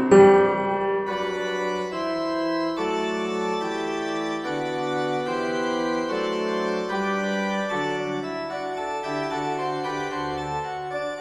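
Background music: slow sustained organ-like keyboard chords changing every second or two.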